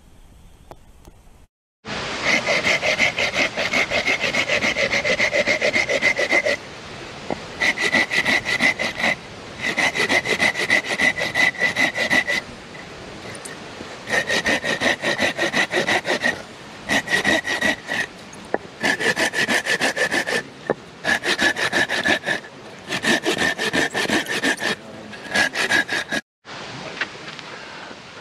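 A hand saw cutting through a bark-covered log, in quick back-and-forth strokes. The sawing starts about two seconds in and comes in bouts of a few seconds with brief pauses, stopping near the end.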